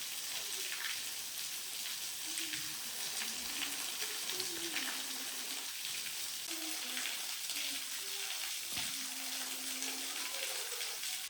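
Steady rushing and splashing of a nearby stream or small waterfall, an even hiss with faint voices underneath.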